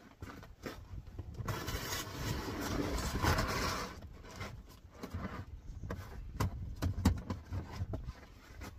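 Camp gear being handled and packed up by hand: a scraping rush lasting a couple of seconds, then a string of sharp clicks and knocks.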